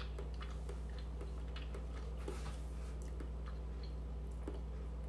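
Someone chewing a bite of egg tart: small crunches and clicks of the crisp, flaky pastry crust, with a noisier stretch about two seconds in. A steady low hum runs underneath.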